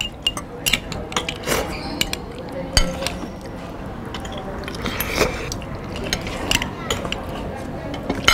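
Forks and spoons clinking and scraping on ceramic plates as noodles are eaten, in irregular light clicks.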